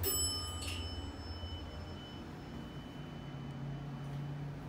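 Elevator chime dinging once, a bell-like tone with several high overtones that rings and fades over about two seconds, with a brief click just after it. A steady low hum from the running elevator continues underneath.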